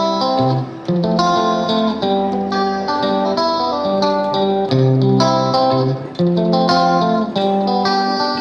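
Background music: plucked guitar playing a melody of changing chords.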